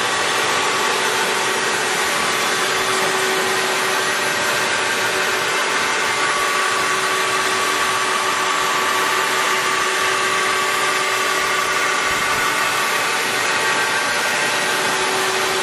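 Leblond 19 x 84 Servo Shift engine lathe running its spindle and chuck at 1160 RPM without a cut: a steady hum with a whine of several held tones from the headstock drive.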